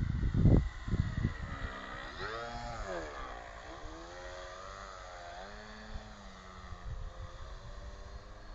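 Radio-controlled MX-2 aerobatic airplane's motor and propeller whining in flight, the pitch swooping down and back up about two seconds in, then wavering more faintly. Wind buffets the microphone loudly in the first second and again near the end.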